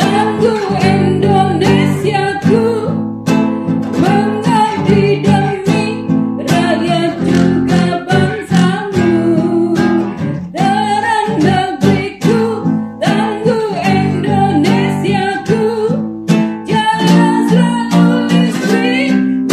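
A woman singing a melodic song into a close microphone over a guitar-led musical accompaniment.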